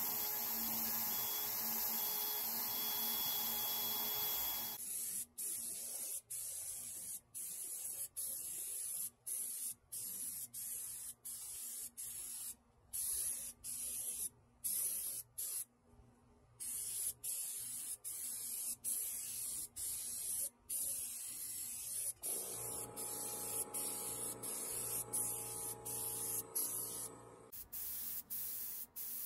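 Power drill spinning a mixing shaft in a can of paint with a steady motor whine, stopping about five seconds in. Then a compressed-air paint spray gun hisses in many short bursts as the trigger is pulled and released. A steady hum joins the hiss for the last several seconds.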